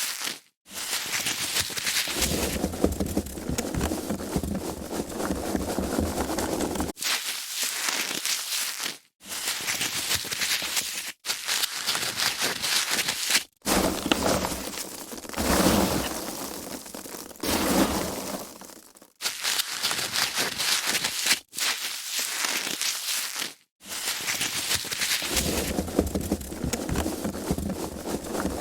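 Foam packaging being handled, a continuous noisy texture in stretches of a few seconds, each broken off by a brief moment of silence.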